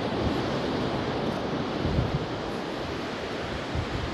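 Ocean surf washing on a beach, a steady rushing noise, with gusts of wind buffeting the microphone in low rumbles.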